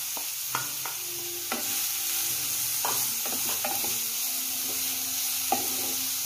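Freshly grated beetroot sizzling in hot oil with whole spices in a frying pan, stirred and scraped with a wooden spatula, with a string of short scrapes and knocks over a steady frying hiss.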